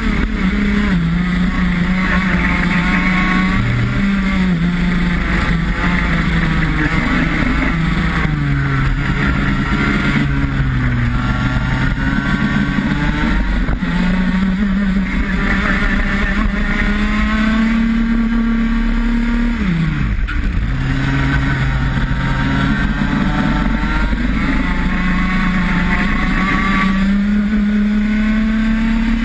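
IAME X30 125 cc two-stroke single-cylinder kart engine at racing revs, heard onboard. Its pitch falls as the kart slows for corners, dipping sharply once about two-thirds of the way through, and climbs again as it accelerates out.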